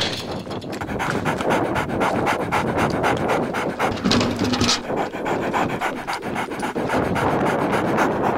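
Border Collie panting hard and fast, steady and rhythmic: the heavy breathing of a dog at full exertion while running an agility course.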